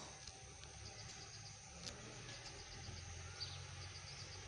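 Faint background: small bird chirps over a low hum, with one light click about two seconds in.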